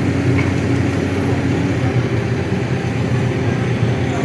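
Heavy-equipment diesel engine running steadily at constant speed with a low, even hum.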